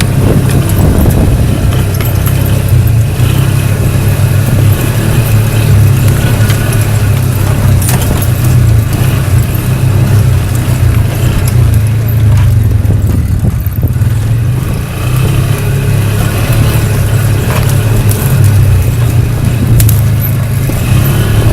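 ATV engine running steadily at a low, even pitch, with scattered clicks and rattles throughout.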